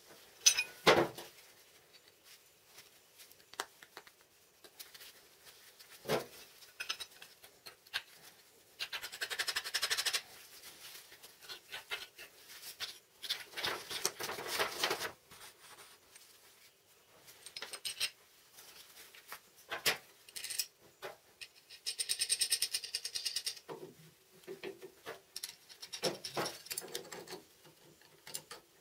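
Steel parts being handled and fitted by hand: scattered clicks and knocks of bolts, nuts and small rollers against steel plates, with several stretches of rustling and scraping. Near the end, a spanner works on a nut.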